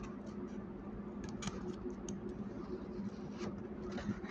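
Faint steady low hum with scattered light clicks and ticks.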